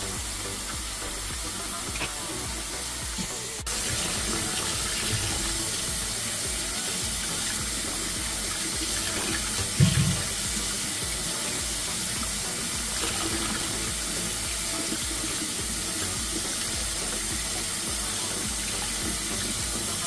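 Cold tap water running steadily into a steel bowl of pork neck bones in a stainless steel sink as they are washed. The stream gets louder about four seconds in, and there is a single brief knock about ten seconds in.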